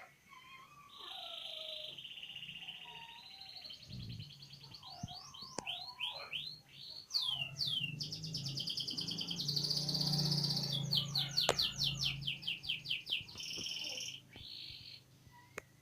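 Domestic canary singing a long, varied song: a sustained rolling trill, then a string of quick downward-sweeping notes, building to loud, rapid repeated notes in the middle before it stops near the end.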